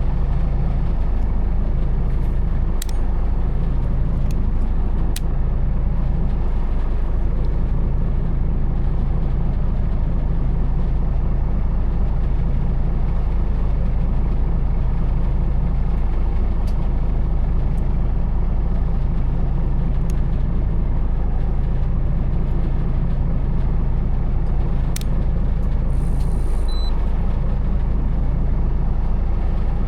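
A fishing boat's engine running with a steady low drone, as the boat is under way or holding position. A few faint clicks, and a short high beep near the end, sit over it.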